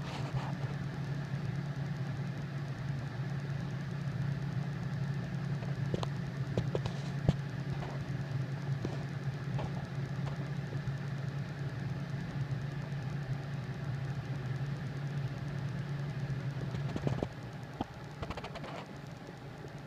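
A steady low mechanical hum with a few faint scattered clicks; the hum drops away near the end.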